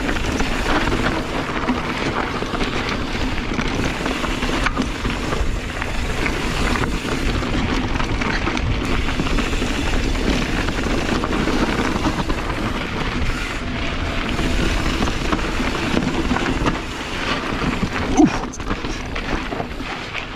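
Wind buffeting the microphone and tyres running over a rough dirt trail as a Kona Process 134 mountain bike is ridden, with many small rattles and knocks from the bike. A sharp knock near the end is the loudest moment.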